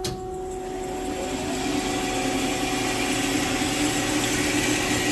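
Marvel Spartan S330/2 mitering bandsaw starting up: a click, then the variable-speed blade drive running with a steady hum that grows louder over the first couple of seconds and then holds.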